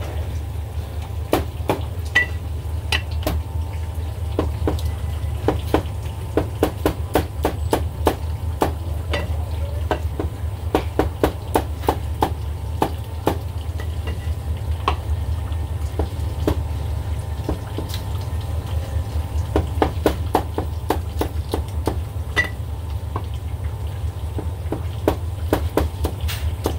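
Chinese cleaver slicing braised beef brisket on a round tree-trunk wooden chopping block: runs of quick, sharp knocks as the blade meets the wood, with short pauses between runs. A steady low hum runs underneath.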